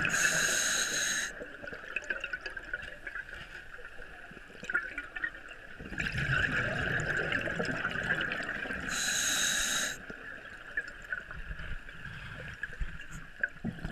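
Scuba breathing recorded underwater: two loud hissing breaths through a regulator about nine seconds apart, with bubbling and gurgling of exhaled air between them.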